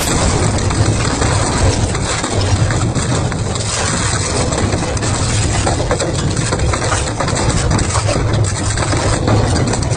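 Double-shaft shredder running under load, its cutters grinding and crunching through scrap metal and plastic: a steady low drone with frequent cracks and snaps throughout.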